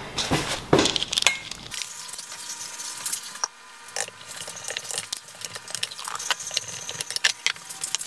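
A spoon or spatula stirring and scraping in a mixing bowl of pie filling. It gives several louder strokes in the first second and a half or so, then light clicks and taps against the bowl.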